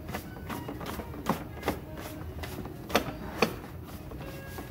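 Irregular light taps and knocks from hands working a felt hat on a hat block, a few sharper knocks about a second and a half in and again around three seconds in.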